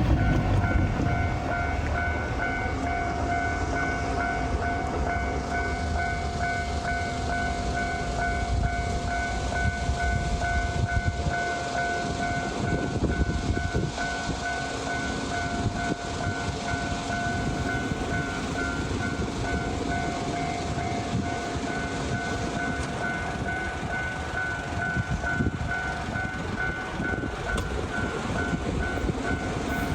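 Japanese railway level-crossing alarm ringing its repeating electronic 'kan-kan' tone while a train runs past over the crossing, its wheels clicking over the rail joints.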